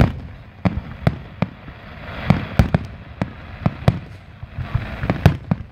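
Aerial firework shells bursting overhead: more than a dozen sharp bangs in an irregular run, a few a second, each with a low rumbling tail.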